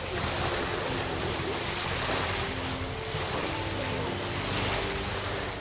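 Wind buffeting the microphone over choppy water, a steady rushing noise. A faint melody of short held notes runs underneath.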